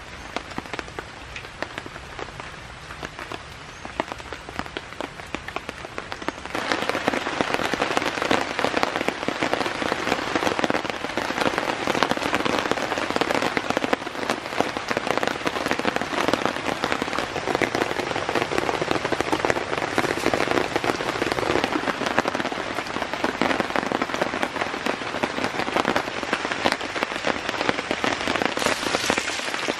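Heavy rain falling steadily on the shelter, a dense patter of drops that gets suddenly louder about six seconds in.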